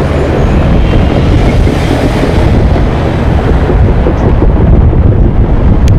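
Wind buffeting the microphone in a heavy, uneven rumble, over the sound of cars passing on the street close by.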